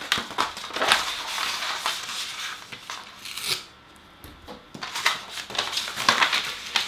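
Sheets of paper rustling and crinkling as they are handled, pulled apart and flattened on a tabletop, in several bursts with a short lull in the middle.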